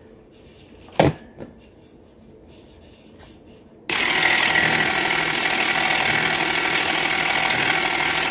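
A plastic clack as the Dash mini ice cream maker's motor head is seated on its freezer bowl. About four seconds in the motor switches on suddenly and runs loud and steady, turning the paddle with a fast rattling whir.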